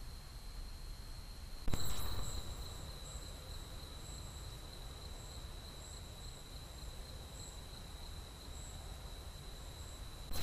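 Night insects calling in a trail-camera recording: a steady high whine over hiss. About 1.7 s in there is a sudden jump in level as the recording changes, and after it a higher, pulsing chirp joins the whine.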